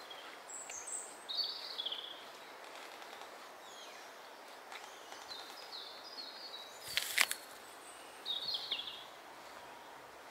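Small birds chirping in short warbled phrases in woodland, over a steady outdoor background. About seven seconds in comes a brief crisp crunch, a bite into a fresh apple.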